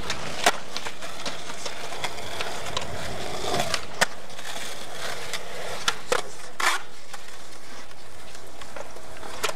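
Skateboard wheels rolling on concrete, with several sharp clacks of the board popping and landing and its trucks hitting concrete ledges; the loudest clack comes about four seconds in.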